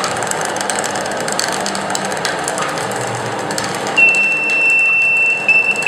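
Automatic stir-fry cooking machine running with a steady mechanical noise and light ticking; about four seconds in its buzzer starts a steady high beep, which breaks into short repeated beeps near the end. This is the machine's alert that the oil is heated and it is time to add the vegetables.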